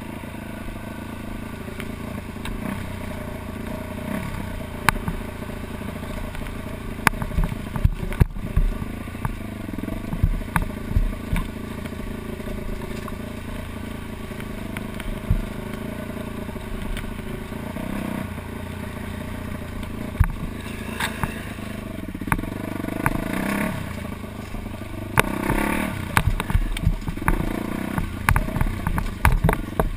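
Dirt bike engine running while it is ridden along a bumpy woodland trail, its pitch rising and falling with the throttle, with frequent knocks and rattles from the rough ground. It gets louder and choppier in the last third.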